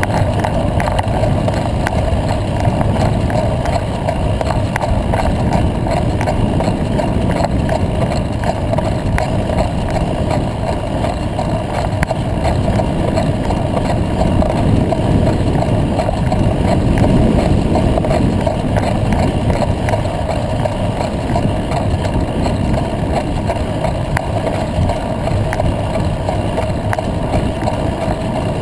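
Steady rumble of wind and rolling noise while travelling along a dirt track, with faint scattered clicks.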